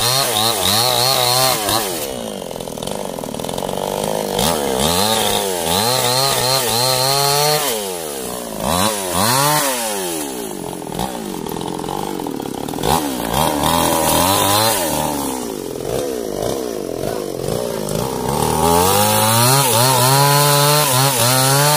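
Two-stroke chainsaw cutting through a sengon log, its engine speed repeatedly dropping and climbing again as the chain bites into the wood and the throttle is worked.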